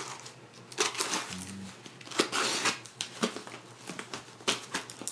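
A cardboard box being cut open with a utility knife: a series of short scraping, rustling strokes of blade on packing tape and cardboard, the longest about two seconds in.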